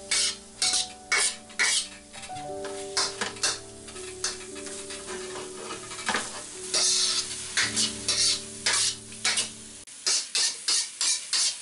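Spatula scraping and tossing chicken and carrot in a hot wok: a quick run of scrapes with the food sizzling, over background music.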